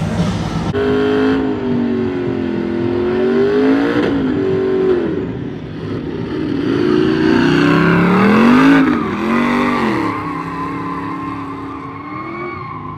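A GMC Sierra pickup's engine revving hard through a burnout, its pitch swinging up and down again and again as the rear tyres spin. It climbs to its highest and loudest just past the middle, then eases off near the end.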